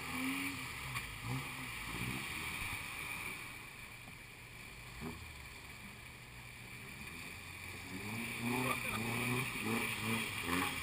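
Toyota pickup truck's engine running at a distance as it wades through deep river water, with water churning around it. People's voices come over it in the first couple of seconds and again near the end.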